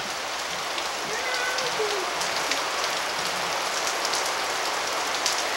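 Steady rain falling, an even hiss without a break.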